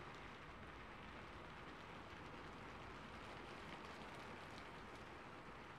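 Soft, steady rainfall: an even hiss with faint scattered drop ticks.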